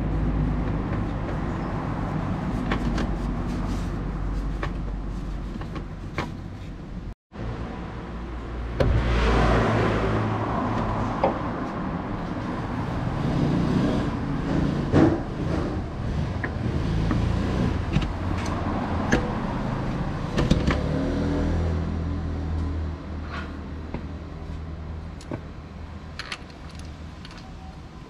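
A steady low mechanical rumble runs underneath. Light metallic clinks and knocks come through the middle part as the crankshaft pulley is handled and slid by hand onto the crankshaft nose of a Honda K20A4 engine.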